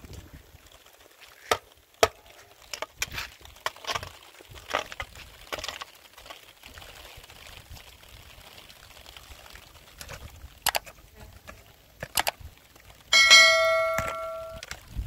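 A metal shovel scraping and knocking against wet, stony ground in a series of short scrapes and sharp knocks. Near the end, one hard strike rings out with a clear bell-like metallic tone for over a second.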